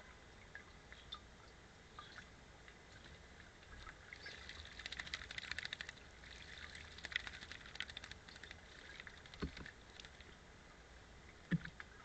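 A bird bathing in a shallow bird bath, its wings flicking water in a rapid patter of splashes for about four seconds, starting about four seconds in. Faint scattered ticks come before it, and a couple of low thumps near the end.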